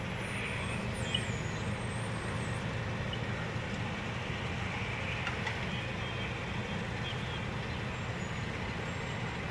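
Fire truck engine running at the scene, a steady low rumble.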